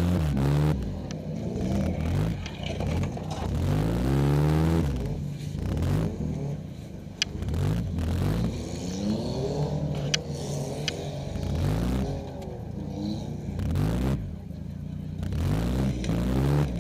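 Demolition-derby car's engine revving up and falling back again and again, heard from inside the cabin, with a few sharp knocks in the middle.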